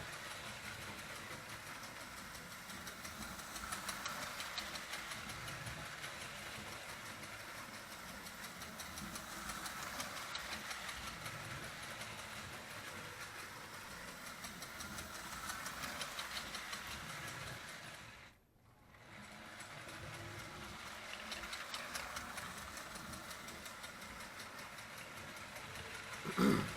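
Marx O27 toy steam locomotive running around the track, its chug-chug sound unit chuffing along with the rattle of its wheels on the metal rails. The sound swells and fades about every six seconds as the train circles. It cuts out almost completely for about a second about two-thirds through, and there is a brief louder knock near the end.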